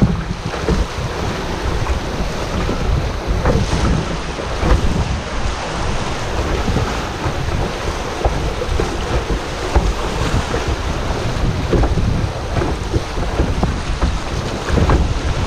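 Canoe moving through fast, wavy river current in spring flood: rushing, splashing water, with wind buffeting the microphone.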